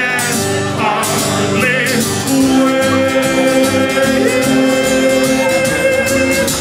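A man singing to his own strummed acoustic guitar. About two seconds in he settles into one long held note.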